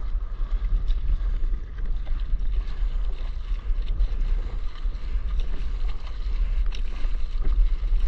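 Wind buffeting the microphone at water level, a heavy low rumble, with water sloshing and small splashes against the board.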